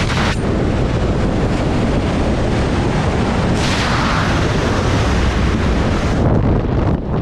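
Airflow rushing and buffeting on the microphone of a base jumper falling along a cliff face: a loud, continuous low rumble. It turns brighter and more hissy for a few seconds midway, then drops off near the end.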